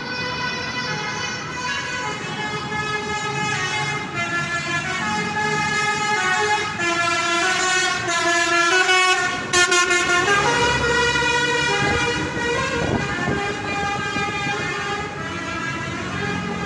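Telolet horn of an ALS intercity bus playing a melody of shifting multi-tone notes, loud and shrill. It grows louder to a peak about nine to ten seconds in, with the bus's engine running underneath in the middle.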